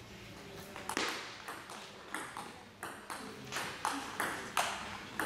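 Table tennis rally: the ball clicking sharply off the rackets and the table in quick alternation, about two or three hits a second, starting about a second in.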